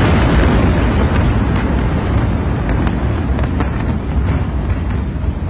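Rumble of a huge explosion rolling on just after the blast, slowly fading, with scattered sharp cracks and pops from the burning debris.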